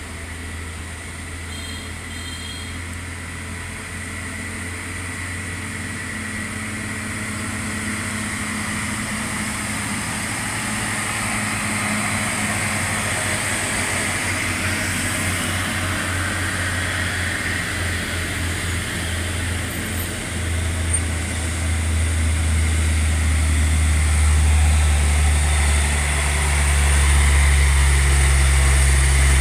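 Heavily loaded diesel trucks climbing a steep hill, their engines pulling hard under load. The engine drone grows steadily louder as they approach and pass. It is loudest near the end as a Hino 500 wing-box truck goes by close.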